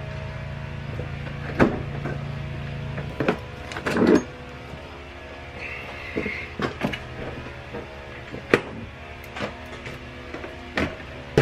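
Knocks, thumps and clatter of gear being loaded into a pickup truck's cab: a plastic toolbox and an extension cord being handled. Sharp clicks come every second or two, with the loudest thump about four seconds in.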